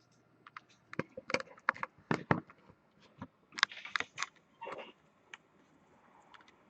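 Irregular sharp clicks and light taps, with a couple of short rustling scrapes around the middle, from objects being handled at a desk.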